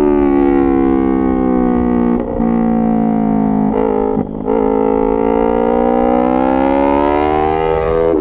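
Yamaha MT-03's 321 cc parallel-twin engine through a full SC-Project titanium exhaust, riding under load. The note sags a little, breaks off briefly about two seconds in and again near four seconds, then rises steadily as the bike accelerates.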